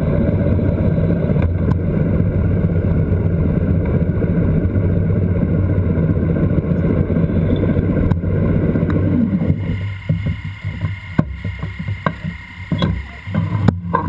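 Motorcycle engine running with wind and road noise rushing over a bike-mounted camera at riding speed. About two-thirds through it drops quieter and uneven, with scattered clicks and knocks.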